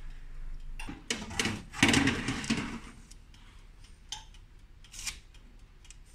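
Metal baking tray scraping and clattering against the oven rack as it is slid into a countertop oven, loudest about two seconds in, followed by a couple of light knocks.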